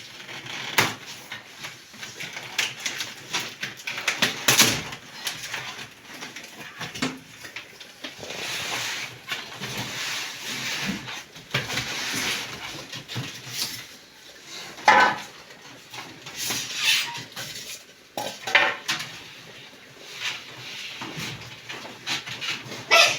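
Dishes and cutlery clinking and clattering at irregular moments, with stretches of scraping in between, as in kitchen work.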